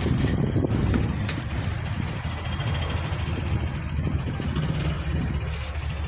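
Bus engine and road noise heard from inside the cabin while riding through city traffic: a steady low rumble, with a few light rattles in the first second or so.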